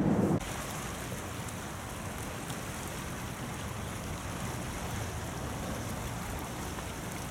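Fast tidal current in a sea strait washing against shoreline rocks: a steady, even rush of water. A brief low rumble comes right at the start.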